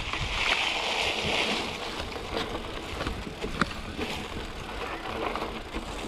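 Surly Pugsley fat bike's big tyres rolling over dry leaves and dirt on a trail, a crunching rustle that is strongest in the first second or so, with a few sharp clicks and knocks from the bike and a low rumble underneath.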